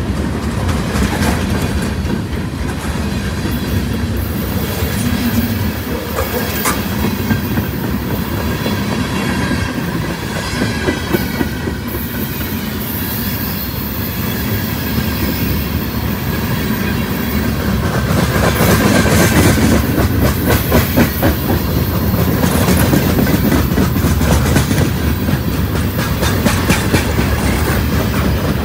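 Freight cars of a long mixed train rolling past close by: steel wheels clicking over the rail joints in a steady clickety-clack over a continuous rumble. The rumble grows louder in the second half.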